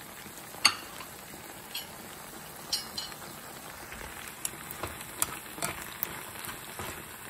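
Canned tuna and bell peppers sizzling in a nonstick skillet, with a sharp click a little under a second in. In the second half, frequent clicks and taps as a spatula stirs the mixture against the pan.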